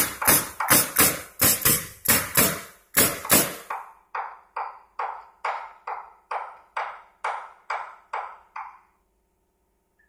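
Pneumatic coil nailer driving nails into wooden pallet slats in quick succession, about three shots a second. Loud, sharp bangs for the first few seconds, then a run of fainter shots at the same pace that stops about nine seconds in.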